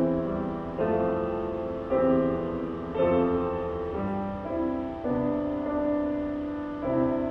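Background music: slow, soft piano chords, a new chord struck about once a second and left to fade.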